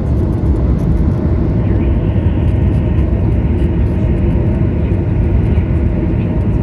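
Jet airliner cabin noise: a steady, loud, low rumble of engines and airflow.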